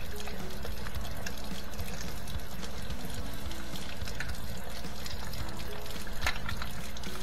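Water pouring and trickling through a dishwasher's rinse-aid dispenser as it is flushed out to clear a clog of dried rinse aid, with a few sharp clicks about six seconds in.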